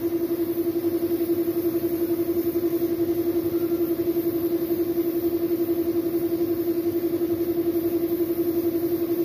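An air compressor runs with a steady, fast-pulsing hum, while a spray gun hisses as it sprays paint onto a motorcycle wheel.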